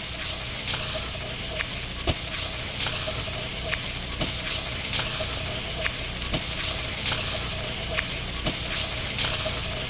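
Food sizzling in a hot pan, a steady frying hiss with sharp crackling pops roughly every half second to second.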